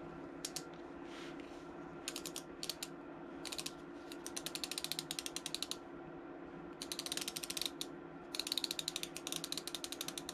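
Clover dome threaded needle case clicking as its top is turned clockwise to wind the thread in: runs of rapid, even ratchet clicks with short pauses between turns, getting denser toward the end. The top turns only clockwise and will not go the other way.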